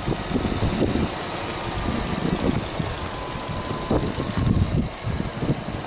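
Subaru Impreza S-GT's turbocharged flat-four (boxer) engine idling with the bonnet open, an uneven low-pitched burble.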